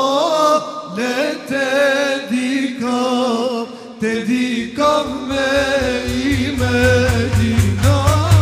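A man singing an ilahija, an Islamic devotional hymn, in a melismatic style, at first with little or no accompaniment. About four seconds in, large frame drums come in with a steady, quick beat under the voice.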